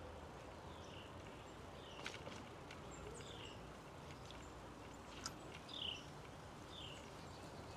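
A bird calling over and over, a short falling chirp repeated about once a second, over a steady background hiss, with a few sharp clicks.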